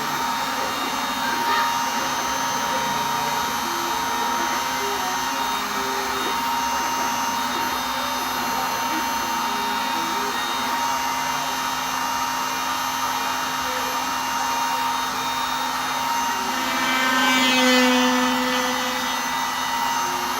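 DIY CNC router cutting a test piece: the spindle motor whines steadily while the stepper motors drive the axes with short tones that keep changing pitch as the moves change. About 17 seconds in the sound swells louder for a couple of seconds, then settles back.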